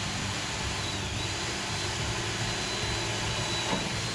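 Power drill running steadily with a small bit, pre-drilling a hole through a door's head jamb. The motor holds a steady whine that dips briefly about a second in.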